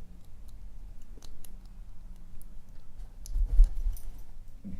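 Small metallic clicks and scrapes of a lock pick and tension wrench working the pin stack of a Sesamee 521 padlock core, with a dull low bump a little over three seconds in.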